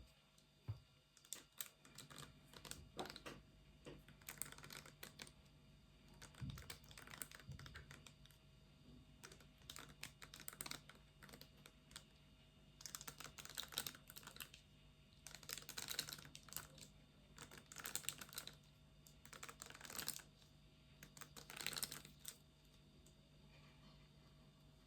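Quiet, close-miked ASMR tapping and scratching on small objects: short clicks and scratchy strokes in clusters, coming about every two seconds in the second half and dying away near the end.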